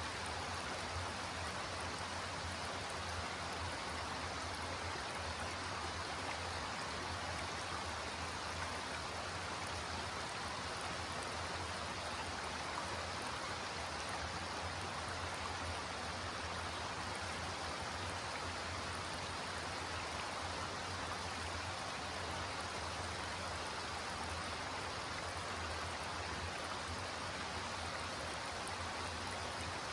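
Shallow rocky creek rippling over flat stone ledges and a low cascade: a steady, even babble of running water.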